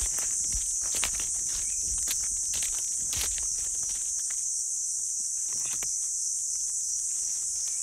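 A steady high-pitched insect chorus fills the forest. Footsteps on the forest floor make short knocks and rustles through the first few seconds and once more about six seconds in.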